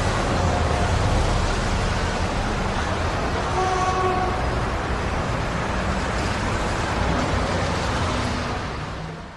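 Street traffic noise with wind rumbling on the microphone while moving along a city street, and a vehicle horn tooting briefly about four seconds in. The sound fades out near the end.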